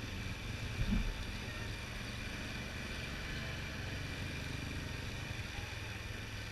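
Steady low rumble of a vehicle moving slowly, with a brief thump about a second in.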